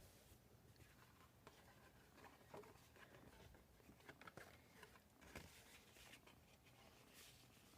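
Near silence with faint, scattered rustles and light taps of paper card stock being handled and pressed down.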